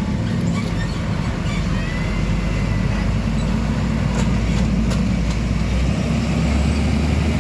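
Heavy diesel truck engine running steadily at close range, with a deep drone whose pitch steps up about six seconds in.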